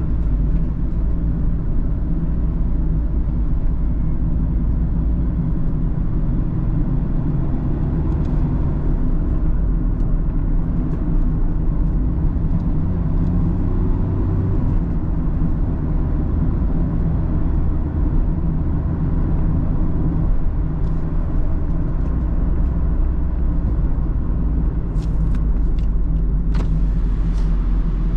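Mazda Roadster (ND) on the move, heard from the driver's seat: engine running at a fairly steady pitch over a low road rumble. A few short clicks near the end.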